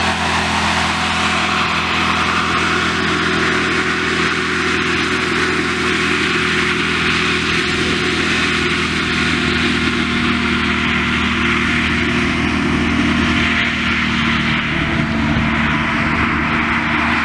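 Anakonda fire-rescue hovercraft running steadily: a continuous engine drone with a wide hiss of fan and rushing air over it.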